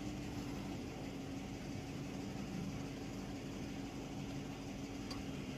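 Steady low hum of an idling engine, with a faint tick about five seconds in.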